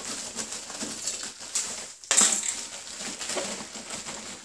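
Ice cubes rattling and clattering as they are dropped into a container to make ice water, with a louder rush of ice about two seconds in.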